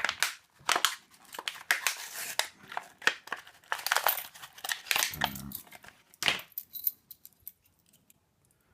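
Small metal clicks and rattles of a padlock and its key being handled, many in quick succession, dying away about seven seconds in.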